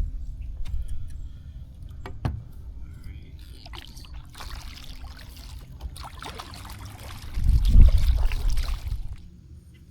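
Water splashing and trickling against the side of a plastic kayak, heaviest and loudest about three-quarters of the way through, with a single sharp knock on the hull a couple of seconds in.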